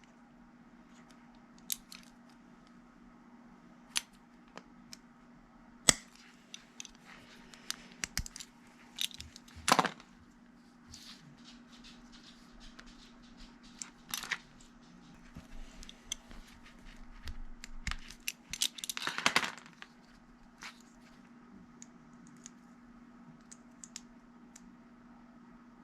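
Irregular clicks, scrapes and rustles of hand tools and wiring being handled at an opened furnace, with the loudest bursts about ten and nineteen seconds in, over a steady low hum.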